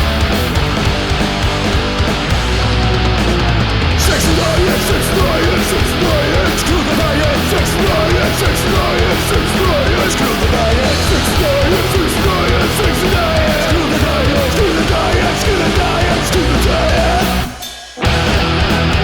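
Punk rock band recording with electric guitars playing loud and full, without vocals. Near the end the music drops away for about half a second, then comes straight back in.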